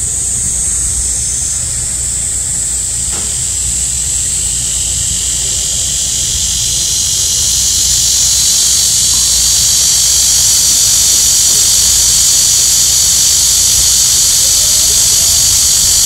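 Cicadas singing in a dense chorus, a loud steady high-pitched buzz that swells and grows fuller about halfway through.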